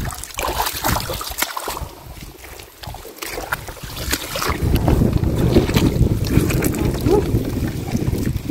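Wind buffeting the microphone as a low rumble, growing stronger about three seconds in, over crackling and rustling of wet weeds and mud being handled in a woven scoop net.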